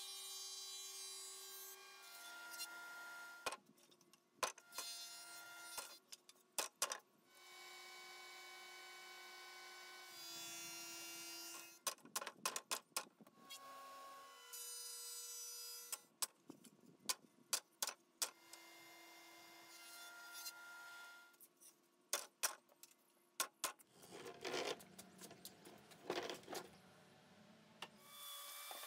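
Power tools run in short spells on pallet wood, each spell a steady whine at its own pitch. Between the spells come sharp knocks and clatter as the boards and metal are handled. Near the end there is a longer, rougher stretch of cutting or sanding noise.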